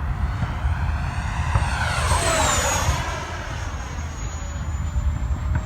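Freewing T-33 RC jet's electric ducted fan whining as the model flies past, its pitch sweeping down about two to three seconds in, over a steady low rumble.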